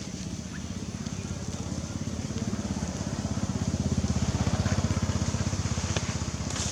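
A motor vehicle engine running with a steady low throb, growing louder toward the middle and easing off near the end.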